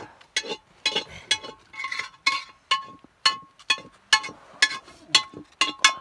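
Metal spoon clinking and scraping against an aluminium cooking pot: quick, irregular clinks, about three to four a second, each with a short metallic ring.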